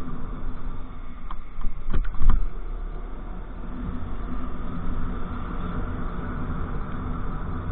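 Motorcycle engine running steadily under way, mixed with road and wind noise, with a few sharp knocks about two seconds in.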